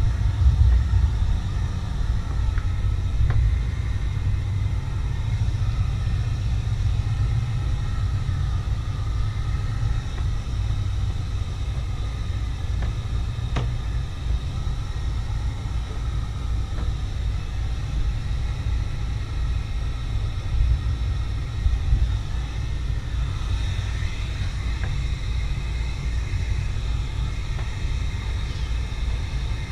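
Wind buffeting the microphone outdoors, an uneven low rumble that does not let up, with a faint click about halfway through.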